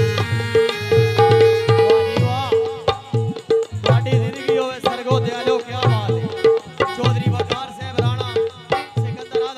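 Tabla playing a steady, even beat in an instrumental break of a Saraiki folk song. Deep bass-drum strokes alternate with ringing treble strokes, under a wavering melody line.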